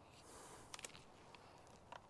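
Near silence: faint background hiss with a few small, quiet clicks about three quarters of a second in and again near the end.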